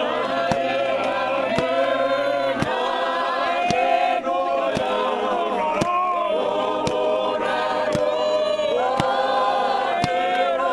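Gospel choir singing a hymn in harmony, mostly men's voices, with a sharp beat about once a second keeping time.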